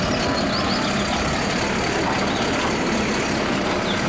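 Mack automated side-loader garbage truck, its diesel engine running steadily while the hydraulic arm lifts a wheeled trash cart and tips it into the hopper.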